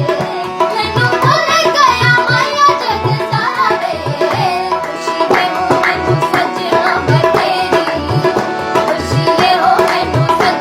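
Indian song performed live: tabla playing a steady rhythm of deep bass strokes under a singing voice and held accompanying notes.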